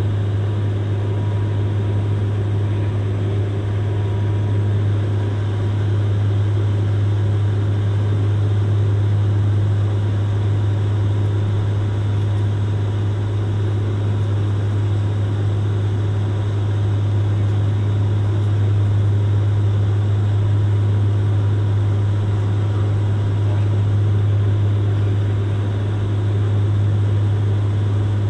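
Cabin sound of a De Havilland Canada Dash 8 Q400 turboprop, heard beside the propeller: a steady, loud low propeller drone over engine and airflow noise. The aircraft is descending on approach with its landing gear extended.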